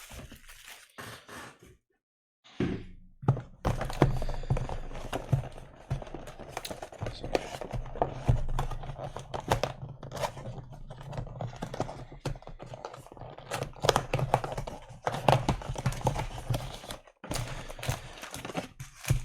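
A cardboard trading-card box being handled and its card packs taken out: a run of thunks, knocks and cracks with crinkling.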